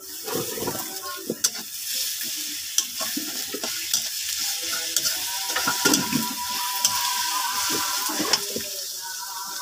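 Sliced onions and ginger-garlic paste sizzling in hot oil in a karahi, stirred with a metal spatula that scrapes and clicks against the pan. The sizzle comes up suddenly at the start as the stirring begins.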